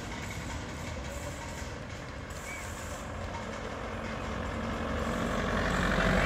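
Volkswagen Golf convertible driving up the road and approaching, its engine and tyre noise growing steadily louder until it is close by near the end.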